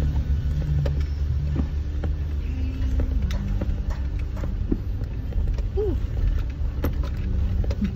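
Suzuki Jimny engine running at low speed, heard from inside the cabin, as the 4x4 crawls over a rocky riverbed. Scattered knocks and clatters from the tyres and body run through it.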